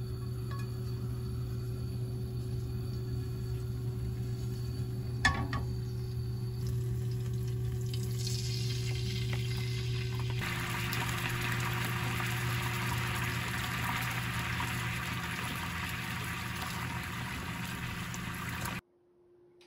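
Chili sauce frying in oil in a pan on a gas stove, then simmering: a steady low hum runs under it, a single sharp knock comes about five seconds in, and a sizzle builds from about eight seconds and turns loud from about ten seconds until a sudden cut near the end.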